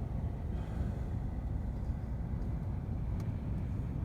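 Strong wind buffeting the microphone: a steady low rumble that rises and falls.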